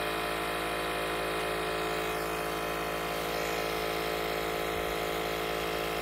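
Milwaukee cordless air pump running steadily with an even motor hum, pumping air into a Tesla Model S air suspension at about 120 PSI, close to the most this pump will give.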